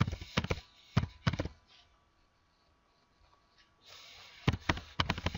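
Computer keyboard keys clicking in two short runs of typing, one at the start and another near the end, as a layer name is typed in.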